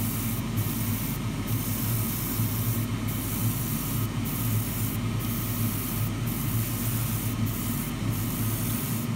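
Airbrush spraying thin black base coat in short passes: a steady hiss of air and paint that breaks off briefly about eight times as the trigger is let off. A steady low hum sits underneath.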